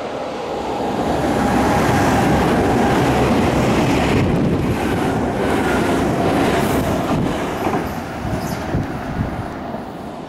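Nankai electric train running through the station close by: a loud rumble of wheels and running gear that swells over the first couple of seconds, then eases off, with clicking over rail joints toward the end.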